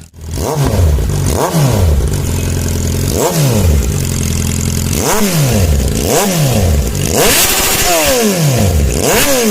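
Suzuki Bandit 650N's inline-four engine through an open exhaust with its baffle removed, blipped by the throttle about eight times. Each rev climbs fast and falls back to idle.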